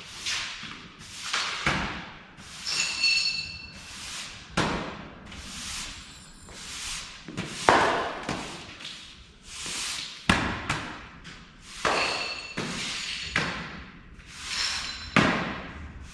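Broom sweeping a shop floor: a string of swishing strokes about one a second, with now and then a sharp knock and a brief metallic ping as debris or tools are disturbed.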